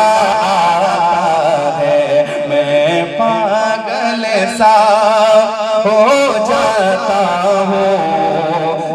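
A man singing a naat, a devotional Urdu song, into a microphone: long held notes with wide vibrato and pitch glides in a drawn-out melodic line.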